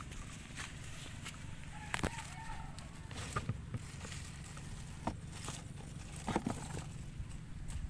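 Close handling noise of a plastic basin and leafy plants: scattered sharp clicks and rustles over a steady low rumble. A faint bird call, like a distant hen, wavers briefly about two seconds in.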